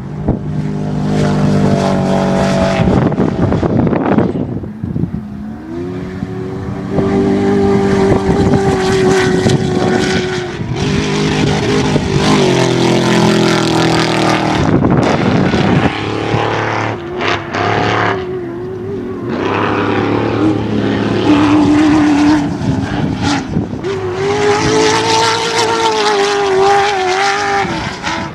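Off-road race vehicles' engines running hard and revving, pitch climbing and falling as they accelerate and pass, in several stretches that change abruptly.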